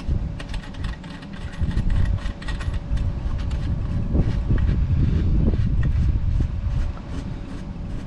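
Small clicks and taps of a coaxial cable's N-type connector being handled and screwed onto the enclosure's antenna port, over a loud, uneven low rumble.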